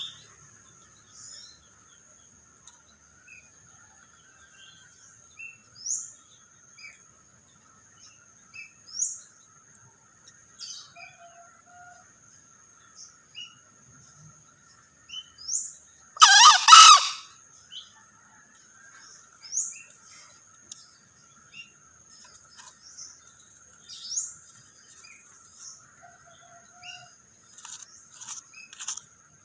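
A male green junglefowl crows once, a short hoarse call about halfway through and the loudest sound by far. Around it, short high rising chirps come every few seconds over a faint steady high-pitched hum, with a quick run of clicks near the end.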